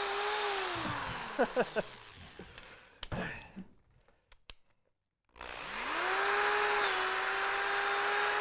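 Corded electric drill spinning an ear of corn on its bit, its motor whine with a rushing hiss. The whine falls in pitch and fades over the first few seconds, stops, then starts again about five seconds in, rising in pitch and running steady.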